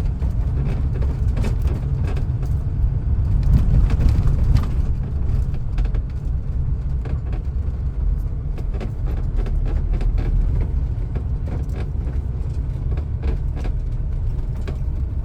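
A vehicle driving: a steady low rumble of engine and road noise, with frequent small rattles and clicks.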